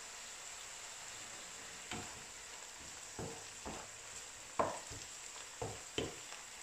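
Chopped nettle, dandelion and ground elder greens frying gently in oil in a non-stick pan, a faint steady sizzle. From about two seconds in, a wooden spoon stirs and scrapes them against the pan in about seven separate strokes.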